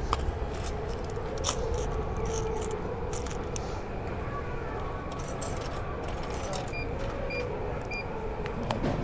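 Coins clinking and being fed into a drink vending machine, a run of sharp metallic clicks, then three short electronic beeps about half a second apart near the end.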